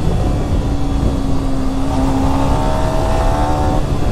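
Yamaha R15M's 155 cc single-cylinder engine running at a steady cruising speed of about 80 km/h. Its note holds steady and its higher tones drop away near the end, over heavy wind rush on the microphone.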